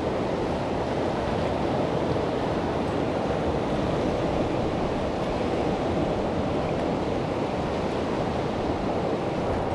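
River water rushing through nearby whitewater rapids: a steady, even rush with no let-up.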